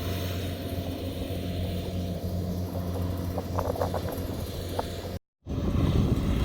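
Kubota DC70 combine harvester running steadily with a low engine hum. The sound drops out briefly a little over five seconds in and comes back louder and rougher.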